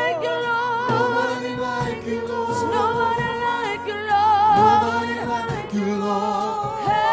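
Two women singing a gospel song into microphones, their sustained notes wavering with vibrato, over steady keyboard accompaniment.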